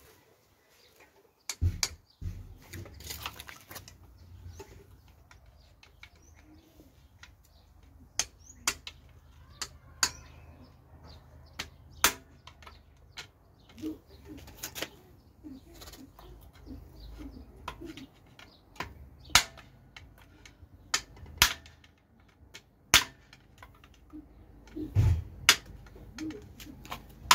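Irregular sharp metallic clicks and knocks of hand tools against a removed engine, about one every second or two, with a low rumble underneath.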